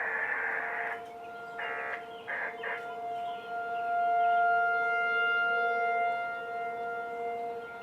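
Outdoor tornado warning siren sounding a steady chord of held tones, swelling to its loudest about halfway through and then easing off. A loud harsh burst fills the first second, and three shorter harsh bursts follow around two seconds in.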